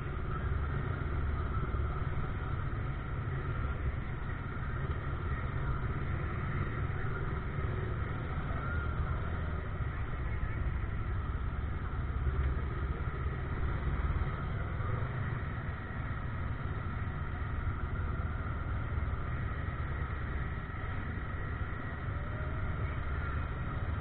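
A vehicle's engine running steadily with a continuous low rumble and no change in pace.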